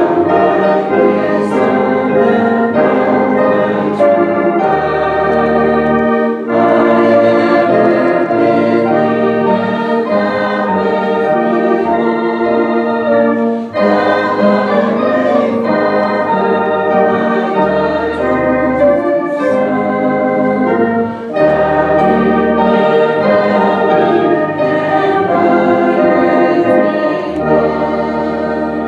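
Church organ accompanying a congregation singing a hymn: held chords over a deep bass line, with short breaks between the sung phrases.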